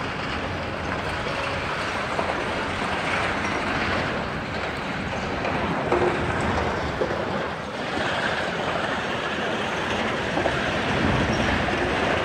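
Demolition excavators working on a concrete building: steady heavy-machine noise with a few knocks, the loudest about six seconds in.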